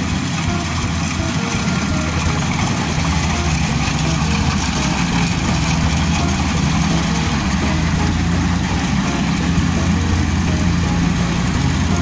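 Kubota DC-70 combine harvester's diesel engine running steadily as the machine cuts and threshes rice, a constant low mechanical hum.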